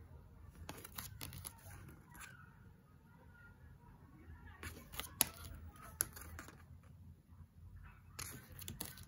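Faint handling of tarot cards, the cardstock clicking and sliding as one card after another is swapped in front of the deck, with two sharper clicks about five and six seconds in.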